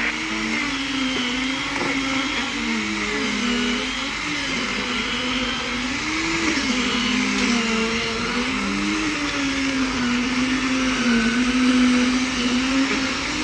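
A motor running continuously with a steady hum whose pitch wavers, dipping and recovering every second or two as if its load keeps changing.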